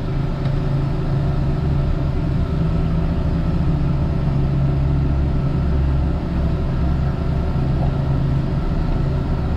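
High-pressure sewer jetter's engine and pump running steadily while the jetting hose feeds down the line.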